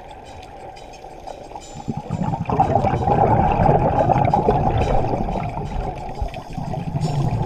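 Scuba diver exhaling through a regulator underwater: a bubbling, rushing rumble that starts about two seconds in and runs for several seconds, heard through the camera's underwater housing.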